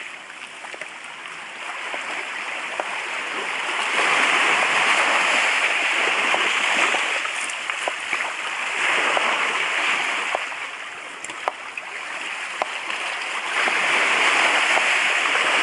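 Surf washing up and back over a pebble beach, swelling three times in slow surges, with a few light clicks.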